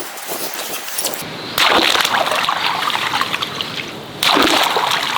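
Water gushing and splashing, with two sudden louder surges about one and a half and four seconds in.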